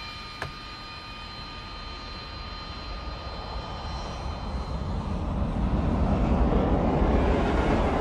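Jet aircraft passing close, growing louder: a steady high engine whine at first gives way to a deep rushing rumble that swells to its loudest near the end.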